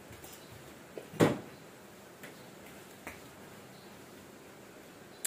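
Close-up eating sounds: a crisp bite into a slice of unripe mango about a second in, followed by a few faint clicks.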